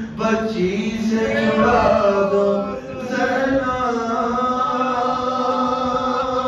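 A man chanting a noha, a Shia lament, solo and without instruments into a microphone. His melodic line moves through several notes, then settles into one long held note in the second half.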